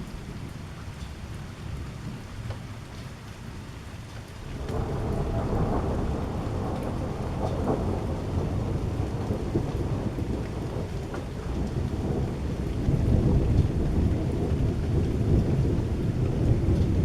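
Rain falling during a thunderstorm, with a long deep roll of thunder that sets in about four seconds in and swells louder again near the end.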